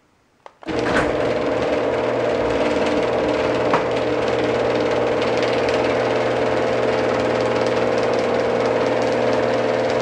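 Genie screw-drive garage door opener starting up about a second in and running steadily: a motor hum with a steady whine over a rattle as the screw drive moves the door.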